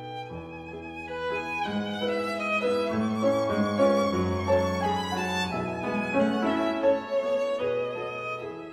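Background music: a violin playing a melody with vibrato over held lower notes.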